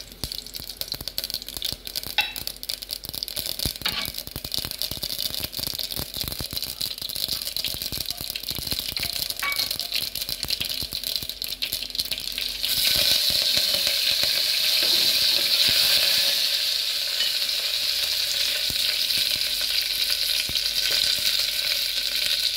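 Tempering in hot oil in a pressure cooker: mustard seeds crackling and popping, with many quick sharp pops over a light sizzle. About thirteen seconds in, fresh curry leaves go into the oil and a much louder, steady sizzle takes over.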